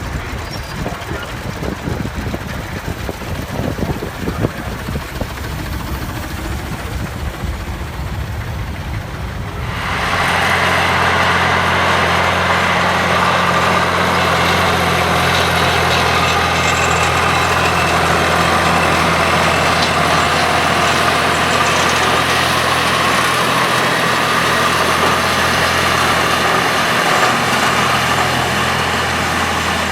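Volvo BM tractor's diesel engine running steadily. About ten seconds in, a low rumble gives way abruptly to a louder, fuller, steady engine sound with a deep hum.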